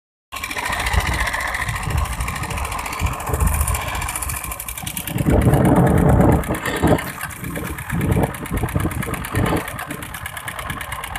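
Small engine of a Balinese outrigger fishing boat running steadily with a fast, even beat, over a wash of rushing noise. A louder surge of that rushing comes about five seconds in and lasts about a second and a half.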